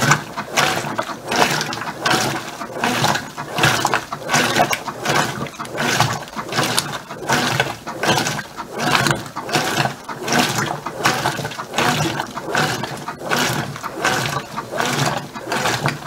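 Brastemp BWK15 top-load washing machine agitating: the agitator churns a load of clothes back and forth through soapy water with a mechanical whir, a rhythmic swish-and-slosh of about two strokes a second. The machine is on its heavy-soil ('dirty') agitation setting, with longer, wider strokes.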